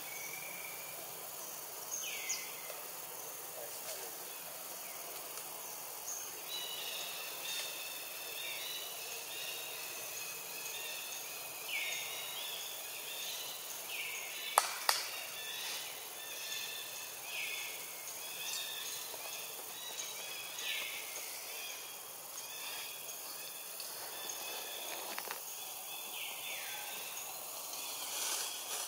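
Forest ambience with birds calling over and over: short high whistled notes in repeated phrases and downward-sweeping calls. A sharp click cuts in about halfway through.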